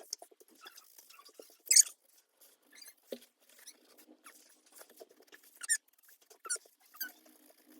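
Mechanical pencil scratching on paper in short, irregular drawing strokes, with a few louder strokes spread through.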